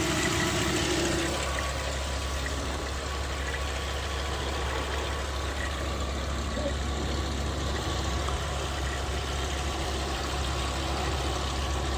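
Volkswagen Golf IV GTI's 2.3-litre VR5 engine idling steadily with an odd mechanical noise, which the owner suspects comes from the timing chain. A higher tone fades out about a second in.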